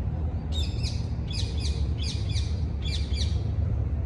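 A bird calling repeatedly: a quick run of about five high chirps, each falling in pitch, starting about half a second in, over a steady low rumble.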